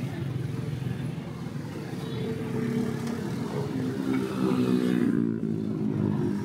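Motorcycle engine running in busy street traffic, its note climbing from about two seconds in and easing off around five seconds.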